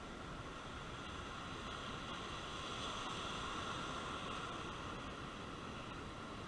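Rough surf breaking offshore and washing up onto the sand, a steady rushing that swells a little in the middle.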